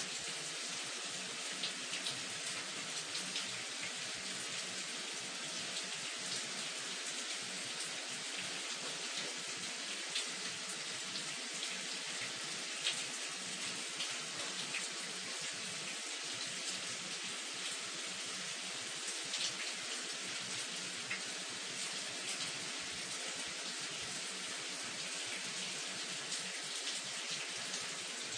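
Shower running: a steady spray of water hissing and pattering, with small irregular splashes throughout.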